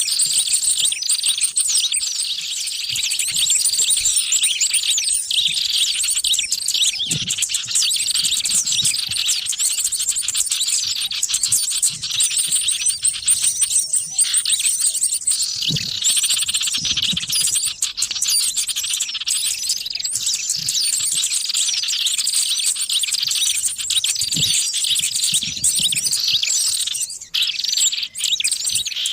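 A dense, continuous chorus of many small birds chirping and trilling together over one another: a bird-lure recording used to draw small wild birds in.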